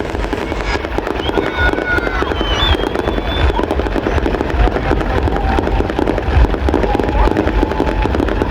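Fireworks and firecrackers going off in a dense, continuous crackle of rapid pops, with a few high whistling tones in the first few seconds.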